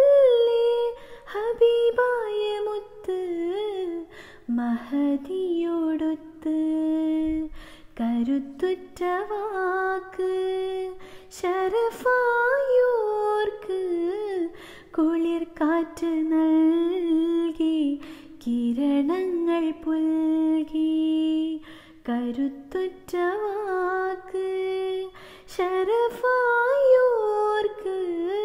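A woman singing a Mappila song (Mappilappattu) alone and unaccompanied: one voice holding notes that waver and slide between pitches, in phrases broken by short pauses for breath.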